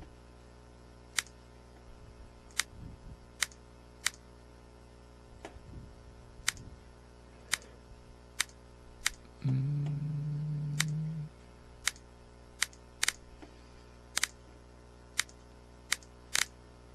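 Computer mouse button clicks: about fifteen single sharp clicks at uneven intervals of roughly a second. A short, steady low hum lasts about two seconds near the middle.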